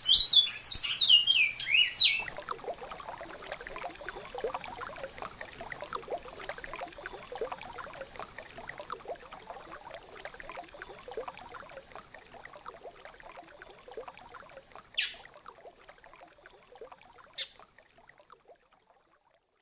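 Great-billed seed finch (bicudo) singing loud whistled, gliding notes that cut off about two seconds in. A babbling river-water sound follows and fades out slowly, with two short high chirps near the end.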